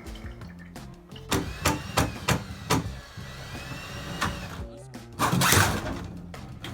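Background music with a bass line and a steady beat, with a brief burst of louder noise about five seconds in.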